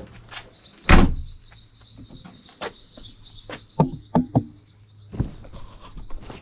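Birds chirping in a continuous fast high trill, with a single loud thump about a second in and a few sharper knocks and clicks around four and five seconds in.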